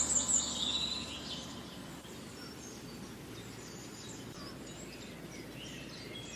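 Birds chirping and calling over a faint, steady outdoor background. The calls are clearest in the first second and thinner and fainter after that.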